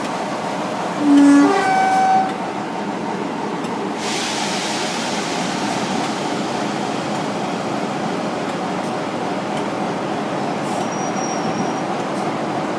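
Two-tone horn of a British heritage diesel locomotive sounded once about a second in, a low note followed by a higher one, over the steady running of the diesel engine. About four seconds in, a hissing rush sets in on top of the engine noise.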